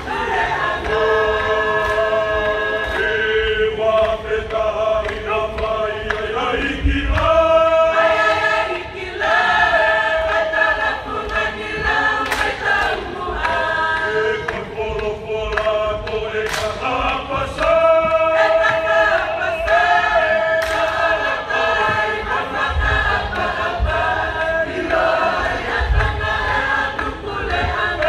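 Tongan lakalaka choir of men and women singing in several parts, in long held phrases that change every few seconds.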